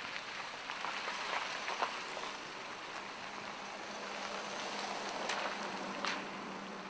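Steady outdoor background noise, a hiss-like wash, with a few short clicks or knocks about two, five and six seconds in.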